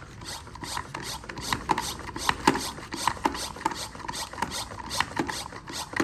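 Handheld pump sprayer being worked in a rapid, regular run of short strokes, about four or five a second, each with a hiss.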